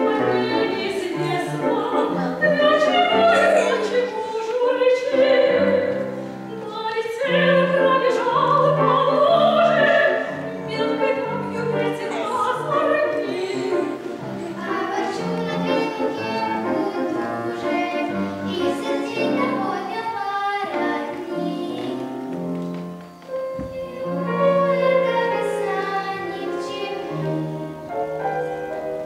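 A woman and two girls singing in operatic style, accompanied by a grand piano.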